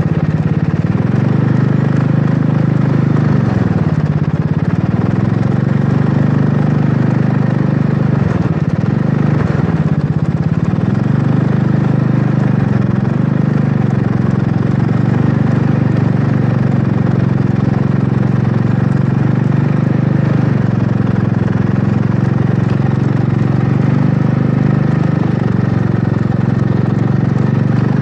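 Small quad bike's engine running at low road speed, its pitch dipping and picking up again a couple of times as the throttle eases and opens.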